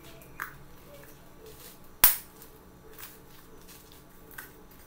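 Small clicks of metal and glass as the bezel ring and glass lens of an old Soviet flashlight head are worked apart by hand, with one sharp, loud snap about two seconds in and fainter clicks before and after it.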